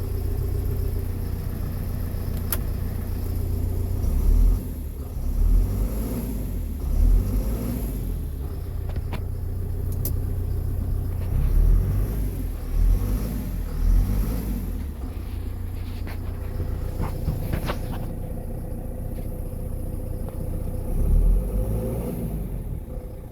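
John Deere 6230 tractor's diesel engine running steadily, its speed rising and falling in about seven revs.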